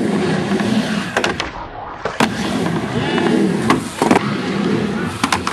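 Skateboard wheels rolling over a ramp, with several sharp clacks as the board's deck and wheels strike the ramp.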